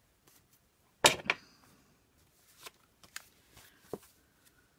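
Paper pages of a handmade journal being handled and shifted on a table: one sharp knock about a second in, then a few lighter taps and soft paper rustles.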